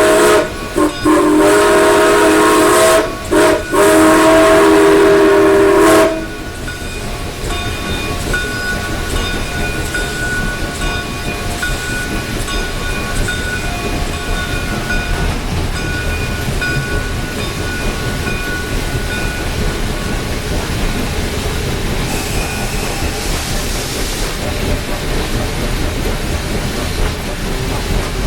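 Canadian Pacific 2816's steam whistle sounding a loud chord in several blasts, with short breaks, then cutting off about six seconds in. After that comes the steady rumble and hiss of the locomotive rolling along, heard from the cab, with faint thin ringing tones over it.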